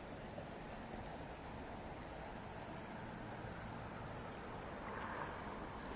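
Steady rushing of fast river current, with a faint high-pitched insect trill pulsing throughout.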